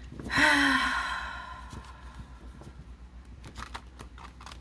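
A person sighing once: an audible breathy exhale with a short voice note that falls in pitch, fading out over about a second and a half.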